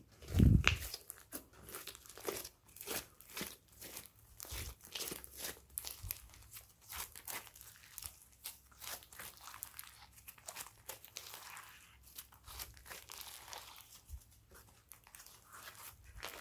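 Thick slime mixed with small foam beads being squeezed, stretched and folded by hand, making a steady stream of sticky crackles and small pops. There is a dull thump about half a second in, louder than the rest.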